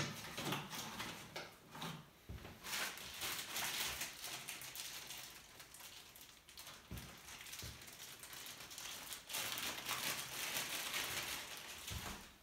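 Clear plastic packaging bag crinkling as it is handled, in two long rustling stretches, with a sharp knock right at the start.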